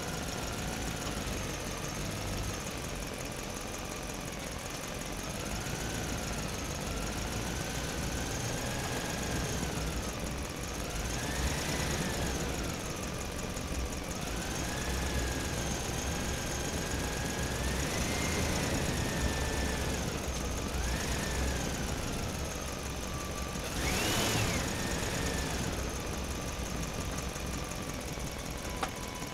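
Small electric motors and gearing of a radio-controlled dump truck whining as the tipper bed lowers and the truck drives off. The pitch rises and falls with the throttle, with a brief sharp rev, the loudest moment, about five seconds before the end.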